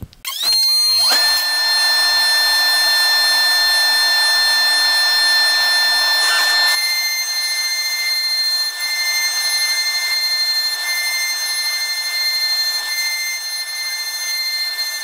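CNC router spindle spinning up to a steady high whine within about a second, with the dust extraction running and a 6 mm single-flute upcut bit cutting a profile through a board. The cutting noise eases slightly about seven seconds in while the whine holds steady.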